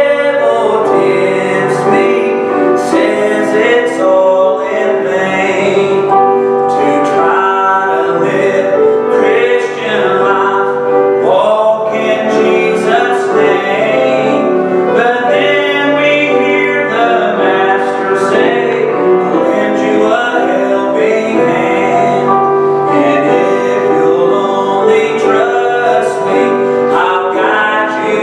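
A man singing a gospel song solo with grand piano accompaniment, the voice ringing in a reverberant hall.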